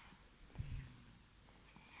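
A three-month-old baby snoring softly in sleep: one short, low snore about half a second in, and the next snoring breath starting near the end.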